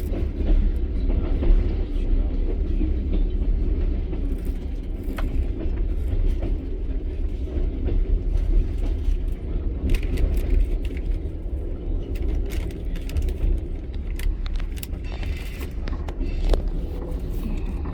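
Passenger train running along the track, heard from inside the carriage: a steady low rumble of wheels on rails with scattered clicks and rattles.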